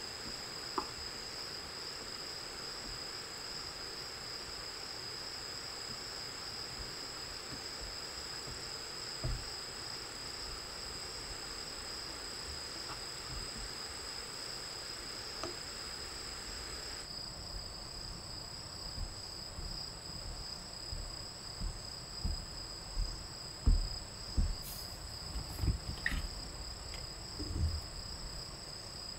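Night insects trilling steadily at two high pitches, one pulsing rapidly, over a soft hiss. In the last ten seconds there are several low knocks and thumps of a cup and utensils handled on a wooden table.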